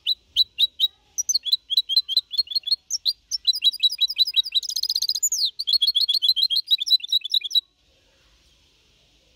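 A young goldfinch-canary hybrid (mixto) singing a learned Málaga-style (copia Málaga) song: fast runs of short, high notes, a buzzy trill and a falling glide in the middle. The song stops abruptly a couple of seconds before the end.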